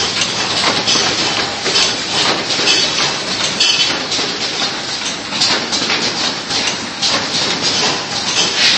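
Full-automatic biscuit cartoning machine running: a continuous, dense mechanical clatter of rapid clicks and knocks from its conveyors and box-forming mechanism.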